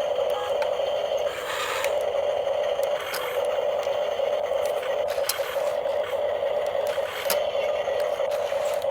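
Small electric motor and plastic gearbox of a 7.2 V RC mini excavator running, a steady whir with a few sharp clicks and light rattles.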